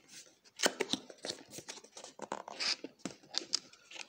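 Hands fumbling at a small cardboard box while struggling to open it: irregular scrapes, taps and rustles of cardboard.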